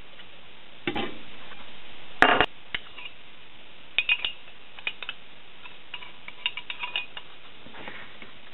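A steel rule and a small metal part being handled and knocked together: a brief clatter about two seconds in, then a string of light metallic clinks and taps.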